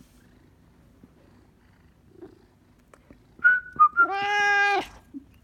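A couple of short whistled notes, then a Maine Coon cat gives one loud, steady meow of under a second in answer to the whistling, which it hates.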